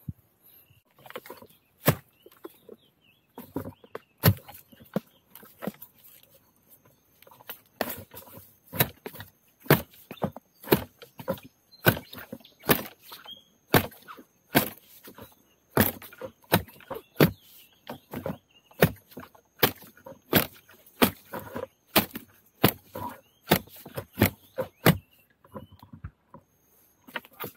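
A large blade chopping at the base of a bamboo clump to cut out young bamboo shoots: sharp, irregular strikes, a few at first, then about two a second, stopping near the end.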